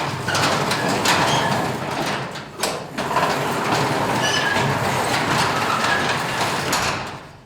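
Sectional garage door opening on cheap black nylon rollers that have never been lubricated: a loud, continuous rolling noise with short high squeaks, stopping about seven seconds in.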